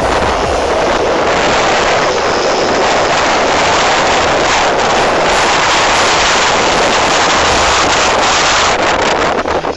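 Suzuki Sepia ZZ 50 cc two-stroke scooter engine running loud and steady as its rear wheel spins in mud.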